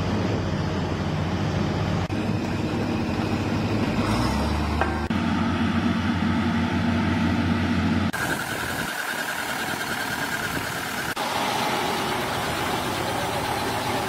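Construction machinery engines running with a steady low hum. The sound changes abruptly several times, and the low hum thins out about eight seconds in.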